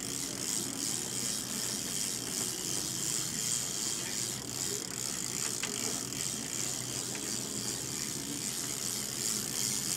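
Fishing reel being cranked against a heavy fish on the line, its gears and pawl clicking steadily.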